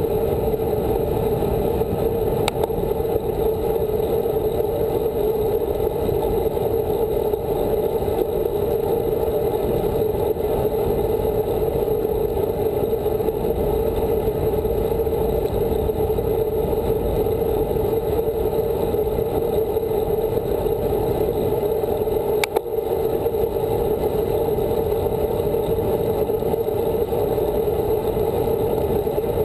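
Steady rushing noise of wind buffeting a handlebar-mounted camera's microphone and road-bike tyres rolling on asphalt at speed, with a brief knock about 22 seconds in.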